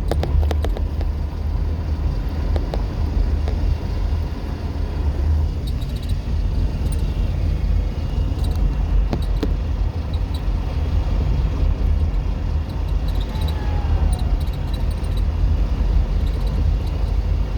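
Car driving slowly, about 23 miles an hour, with a window open: a steady low rumble from the vehicle and road, with a few faint clicks.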